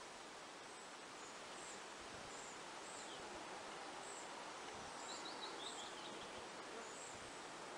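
Outdoor ambience: a steady soft hiss with a thin, high chirp repeating about every two-thirds of a second, and a bird's quick run of about six notes stepping down in pitch about five seconds in.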